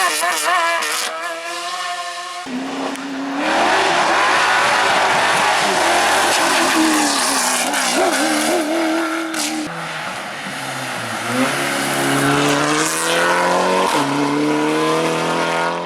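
Racing cars' engines at full throttle, the pitch climbing again and again as they accelerate up through the gears, with several abrupt changes from one car to the next.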